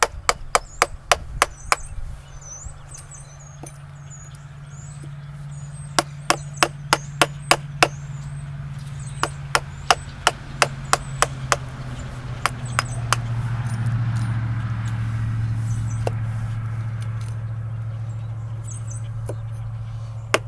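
Mallet driving a carving chisel into a wooden log, in quick runs of sharp strikes at about four a second with pauses between runs. A steady low hum swells in the middle and fades underneath.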